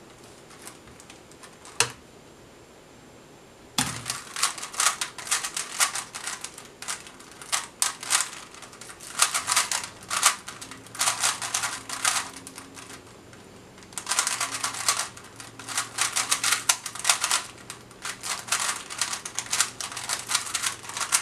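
Rubik's Cube being turned rapidly with one hand: fast runs of plastic clicking and clacking as the layers turn. There is a single click about two seconds in, the clicking starts about four seconds in, and it breaks off briefly about two-thirds of the way through before resuming.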